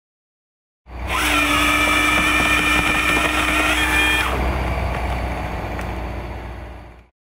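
Power-tool motor running at high speed, starting abruptly about a second in and holding a steady pitch. A little past halfway its tones drop away, and it fades before cutting off shortly before the end.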